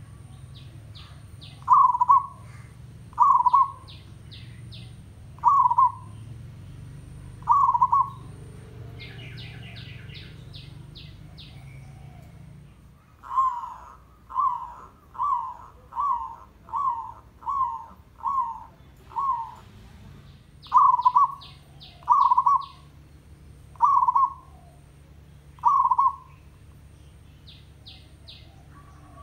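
Zebra dove (perkutut) cooing in short, loud notes. A few notes come spaced out, then a quicker run of about eight follows, then they slow again. Quick runs of high chirps fall between the coos.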